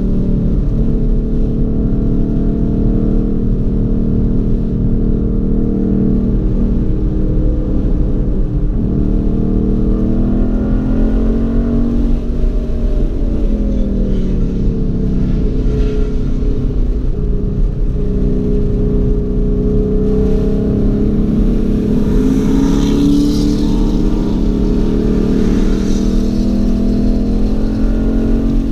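Car engine heard from inside the cabin while lapping a race track, its pitch falling as the car slows about twelve seconds in, then climbing steadily under acceleration, over steady road and wind noise.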